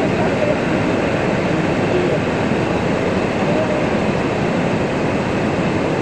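Waterfall and rushing river water making a steady, loud roar, with faint distant voices now and then.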